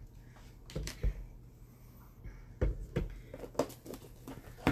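Plastic kitchen containers being handled: a few soft knocks, then a quick series of light clicks and taps near the end as a plastic lid goes onto a storage container.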